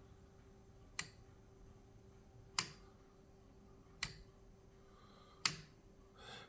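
Verge-and-foliot escapement of a 1970s Bott wooden-geared replica clock ticking: four sharp ticks about one and a half seconds apart. The clock is beating faster under a slightly increased driving weight.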